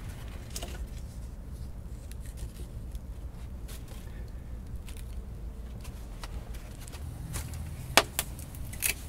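Small fire of shredded bark and twigs crackling, with scattered sharp pops over a low steady rumble, and two louder snaps near the end, about a second apart.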